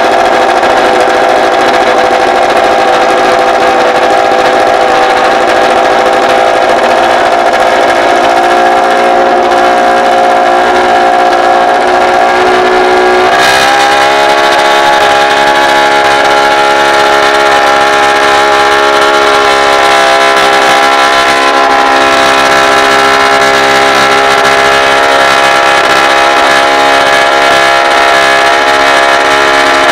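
Honda RC213V MotoGP bike's 1000 cc V4 engine running at a steady fast idle. About halfway through, the revs step up quickly and then hold steady at the higher pitch.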